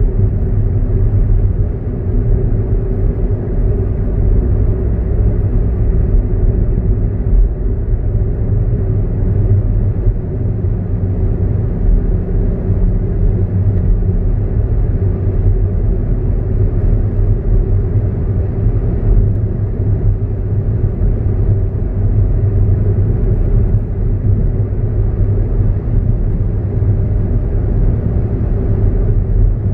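Steady low rumble of a car cruising at highway speed, heard from inside the cabin: engine and tyre road noise.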